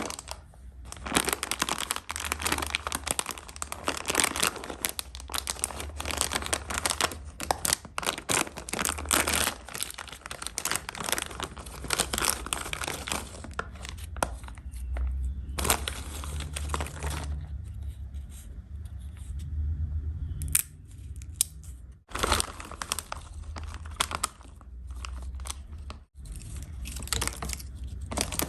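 Candy and snack wrappers being crinkled and torn open close to the microphone: dense crackling with many sharp clicks, easing off briefly a couple of times midway.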